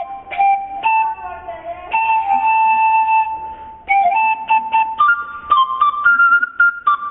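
Andean antara (panpipe) playing a solo melody in separate breathy notes, with one long held note about two seconds in and the tune climbing higher in the second half.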